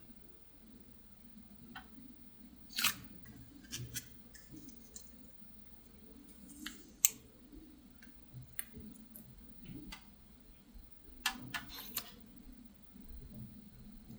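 Thick clear slime being worked by hand, giving scattered sharp clicks and pops as air bubbles burst, with a quick cluster of pops near the end.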